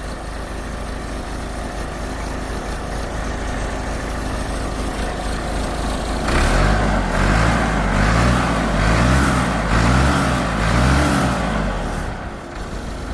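Backhoe engine running steadily. From about six seconds in it is revved up and down about five times, with a hiss over it, before settling back.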